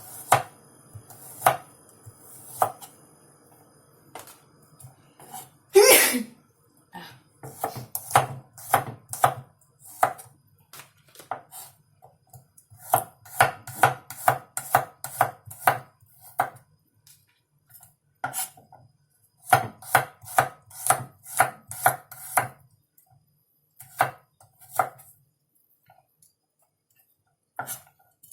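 Kitchen knife slicing garlic on a cutting board: runs of quick strikes, about three a second, broken by pauses. One louder, longer sound about six seconds in.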